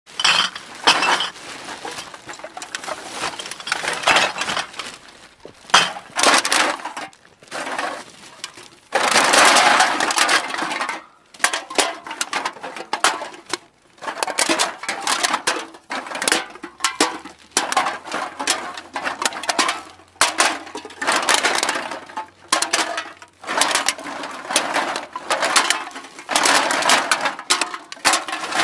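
Cans being dropped and pushed into a bag: repeated irregular clattering and clinking of the cans against each other, with rustling from the bag between the knocks.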